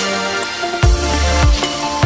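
Background electronic music: a melody over steady synth tones, with a heavy bass and kick drum coming in a little under a second in.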